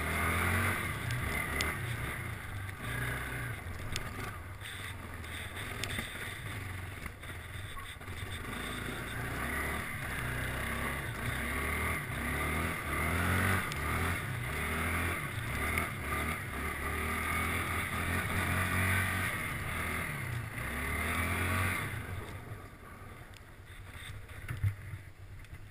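Kawasaki Bayou 300 ATV's single-cylinder four-stroke engine running under throttle as the ATV is ridden, the engine note rising and falling with the throttle and dropping off about 22 seconds in as the rider eases off.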